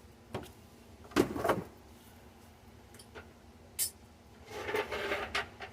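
Tools and parts being handled: a few sharp knocks and clanks, the loudest about a second in, then a stretch of scraping and rustling near the end.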